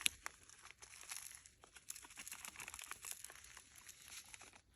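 Plastic food packaging crinkling and rustling as it is opened and handled: a dense run of small crackles.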